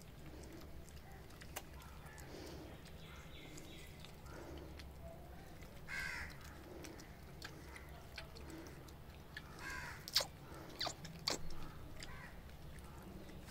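Faint animal calls, a couple of them louder around six and ten seconds in, over a low steady hum. A few sharp clicks come about ten to eleven seconds in.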